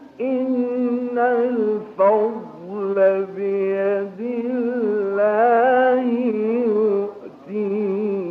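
Male Qur'an reciter chanting in maqam Bayati: long, drawn-out melismatic phrases with wavering ornaments, broken by a few brief pauses for breath. Old narrow-band 1960 recording.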